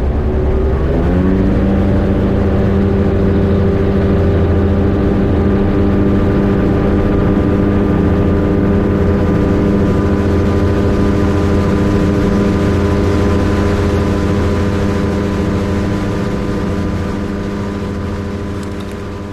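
Rotax 582 two-stroke engine of an X'Air microlight running at high power: its pitch rises about a second in, then holds steady, and the sound fades out near the end.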